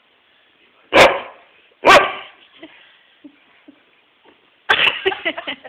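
Shetland sheepdog barking in play, two sharp barks about a second apart, then a rapid flurry of shorter, quieter sounds near the end.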